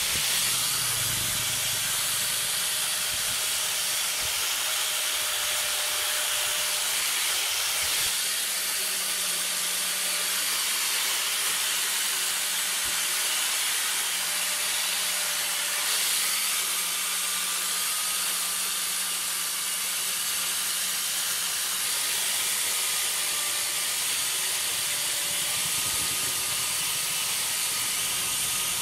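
Angle grinder with a yellow abrasive disc running steadily against a steel ball-peen hammer head, sanding and polishing it: a continuous hiss of abrasive on metal over a faint motor whine that wavers slightly as the pressure changes.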